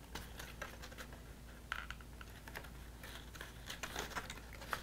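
Faint, scattered small clicks and rustles of stiff paper as fingers press glued tabs of a paper model together.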